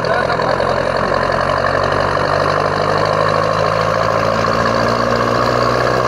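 Vehicle engine and tyre noise, a steady, even drone, heard from inside the vehicle while driving along a road.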